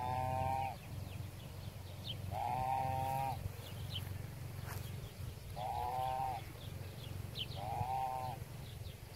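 An animal bleating four times, each call short and level in pitch, a couple of seconds apart, over a steady low hum.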